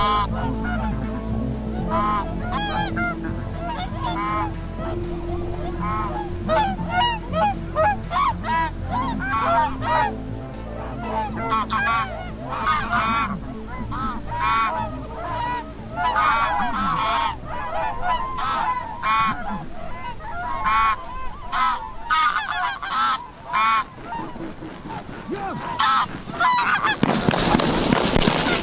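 A flock of greylag geese honking as they fly in, many short calls overlapping throughout. A loud burst of rushing noise comes near the end as the flock passes low overhead.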